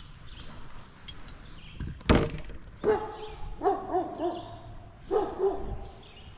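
A sharp knock about two seconds in, then a series of short pitched calls with rising-and-falling pitch, coming in three clusters.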